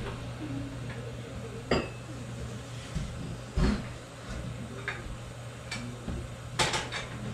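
Steady low hum with a few scattered light knocks and clicks, the loudest a quick pair near the end.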